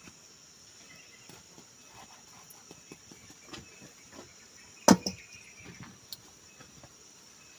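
Insects chirring steadily in a high, even drone, with scattered small clicks and taps and one sharp knock about five seconds in.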